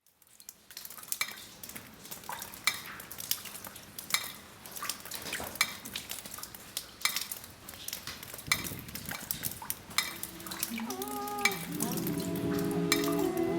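Irregular sharp clicks and a fine crackle, like small hard objects being handled. From about ten seconds in, several humming voices come in over them, holding long notes that slide between pitches and grow louder.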